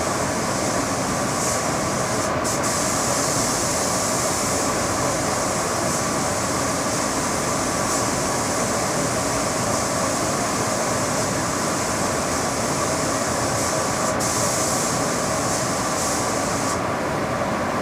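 Compressed-air paint spray gun hissing over the steady hum of a running motor, the hiss swelling and easing a few times as the gun is worked.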